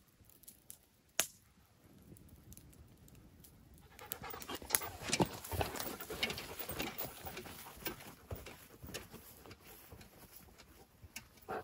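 A dog panting, starting up about four seconds in and slowly easing off, with one sharp click about a second in.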